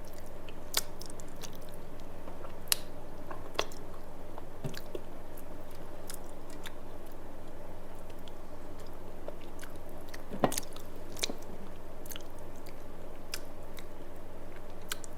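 Close-up mouth sounds of a person eating rice with fish curry: chewing with scattered wet smacks and clicks, over a steady low hum.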